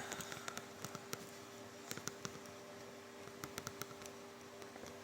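Faint scattered clicks and taps of the camera being handled and set in place, a small run of them about three and a half seconds in, over a steady low hum.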